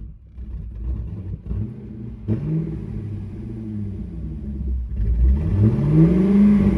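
Corvette V8 engine running just after being jump-started from a fully dead battery. It is revved twice: a short blip about two seconds in, then a longer rise and fall near the end.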